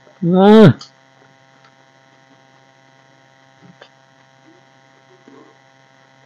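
A steady electrical mains hum. Near the start it is broken by one loud, short vocal sound from a person, under a second long, with its pitch falling at the end. A faint click comes a little before four seconds in.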